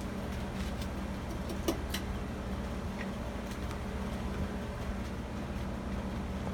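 Hunter Original ceiling fan's 1.1 amp motor running steadily on medium speed: a constant low hum with the rush of the moving air, and a few faint clicks about two seconds in.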